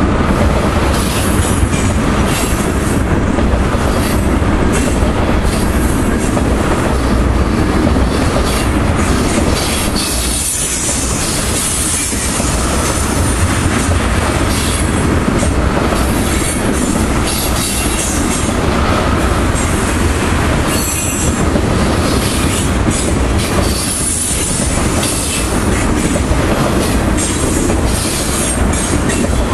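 Freight train of loaded tank cars rolling past close by: a loud, steady rumble of steel wheels on rail with repeated clacks over the rail joints. High-pitched wheel squeal comes and goes as the wheels work around the curve.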